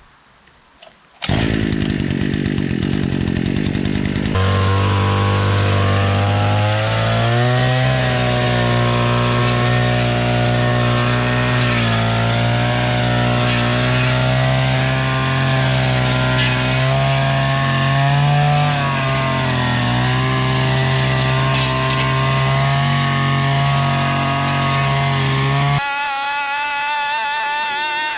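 Two-stroke backpack brushcutter engine catching about a second in and running at low speed, then revving up a few seconds later and running at high speed. Its pitch dips and rises as the cutting line works through dense weeds.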